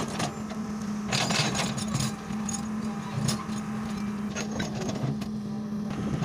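Hitachi long-reach excavator's diesel engine running at a steady pitch, with scattered knocks and scrapes as the bucket pushes and drags rocky soil.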